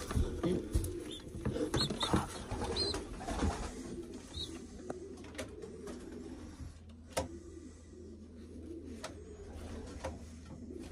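Racing pigeons cooing in a loft, with a few short high chirps in the first few seconds and several sharp clicks scattered through; the cooing thins out after about four seconds.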